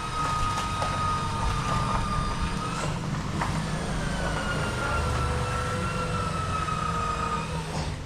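A handheld electric power tool running with a steady motor whine. The whine breaks off about three seconds in, starts again with a slight drop in pitch, and cuts off near the end, with a few clicks over it.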